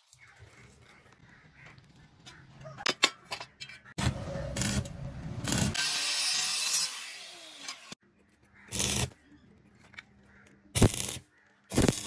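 Electric angle grinder grinding steel plate for about three seconds, then trailing off. It comes after a few sharp taps and is followed by three short, loud bursts of noise.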